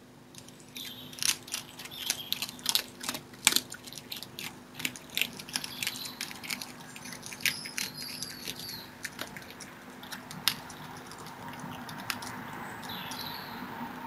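Red fox eating meat: a fast run of sharp wet clicks and smacks of chewing, thinning out after about ten seconds. Birds sing in short chirps in the background, one near the end.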